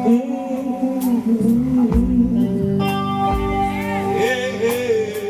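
Live band music: held chords under a wavering, bending lead melody, with guitar.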